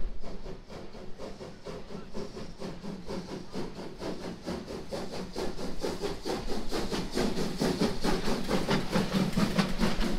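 Steam locomotive chuffing with a steady run of rapid exhaust beats as it hauls carriages toward the crossing. The beats grow louder toward the end as it draws near.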